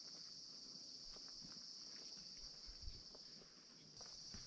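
Faint steady high-pitched drone of forest insects, breaking off for about half a second near the end before starting again, with scattered faint soft ticks.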